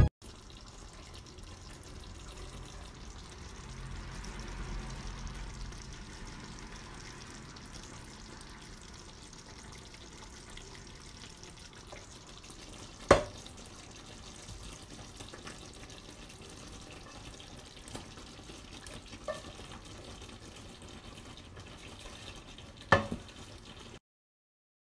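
Steady sizzle of food cooking in a frying pan, with two sharp clinks of a utensil against the pan, about halfway through and near the end. The sound cuts off suddenly just before the end.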